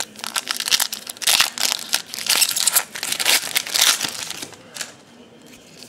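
Foil wrapper of a Topps baseball card pack being torn open and crinkled by hand: a dense, crackly rustle that dies away about four seconds in.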